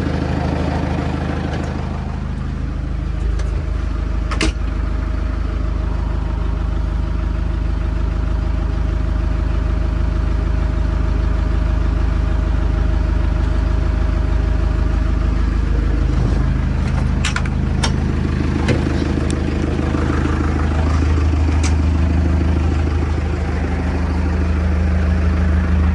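Backhoe loader's diesel engine running steadily, with a few sharp clicks or knocks over it.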